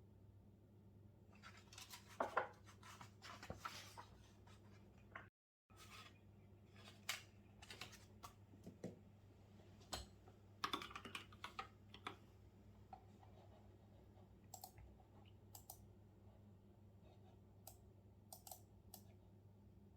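Quiet typing on a computer keyboard: scattered, irregular keystrokes starting about a second in, over a faint steady low hum.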